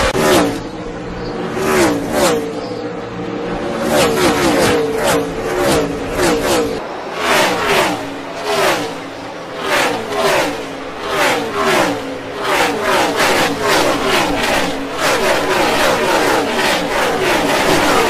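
NASCAR stock cars' V8 engines passing one after another at full speed. Each engine note drops in pitch as the car goes by, about one a second, and the stream grows thicker in the second half.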